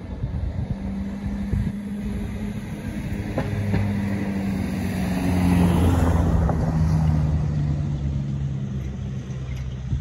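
A car drives past on a wet road: its engine hum and tyre hiss grow to their loudest about six seconds in, then ease off as the pitch sinks slightly. The sound cuts off suddenly at the end.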